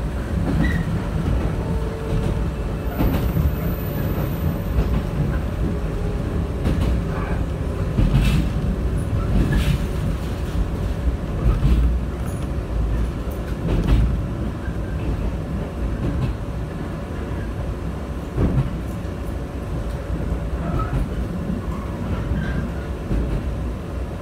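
Running noise of a JR West 123 series electric railcar heard from inside the car: a steady low rumble of wheels on rail, with a faint steady hum. A few sharp knocks come through now and then, the strongest about 8, 12 and 14 seconds in.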